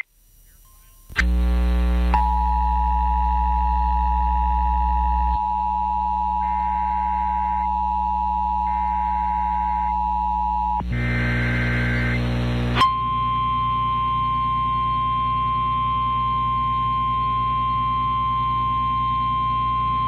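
Emergency Alert System tones on NOAA Weather Radio ahead of a severe thunderstorm warning: a steady electronic alert tone with a higher tone pulsing on and off over it, then a short raspy burst of data noise about eleven seconds in. After the burst comes the single steady pitch of the Weather Radio warning alarm tone, over a low hum.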